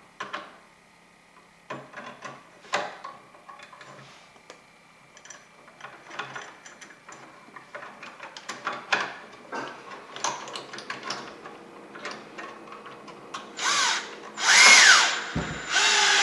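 Handling clicks and knocks as wires are fitted into a drill-mounted wire-twister bit, then near the end an electric drill runs in a few short bursts, its motor pitch rising and falling as it spins the bit to twist the wires together.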